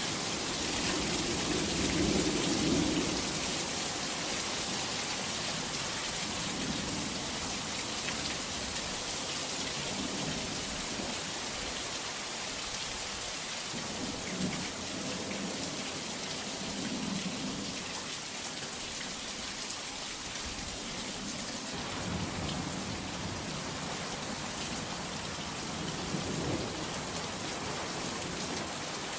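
Heavy rain falling steadily, with low thunder rumbling again and again. The loudest roll of thunder comes about two seconds in, and fainter ones follow every few seconds.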